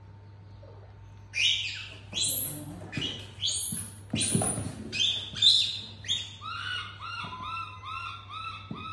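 A series of shrill, high-pitched animal calls, starting about a second in at roughly two a second, then turning shorter, lower and quicker, about three a second, after a few seconds.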